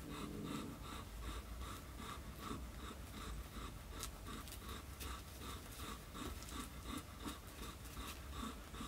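Newborn kittens suckling at the mother cat's teats: soft, rapid, rhythmic sucking and smacking, repeating several times a second.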